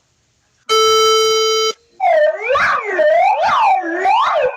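Emergency Alert System alarm: a steady, harsh tone for about a second, then, from about two seconds in, a wailing siren of several overlapping pitches sweeping up and down roughly once a second.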